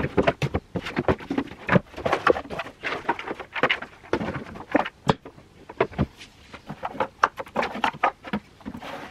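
Cardboard board-game boxes being handled and stacked onto shelves: irregular taps, knocks and scrapes as boxes are set down and slid into place.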